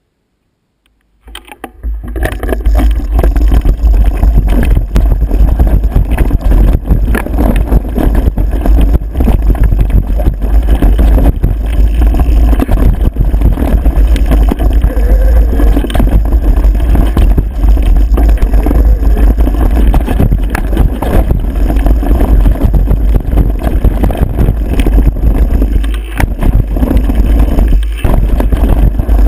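Loud wind buffeting on an action camera's microphone during a fast mountain-bike descent of a rough dirt trail, with constant rattling and knocks from the bumps; it starts about a second in.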